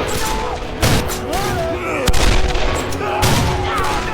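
Gunfire in a film scene: several gunshots about a second apart, over a music score.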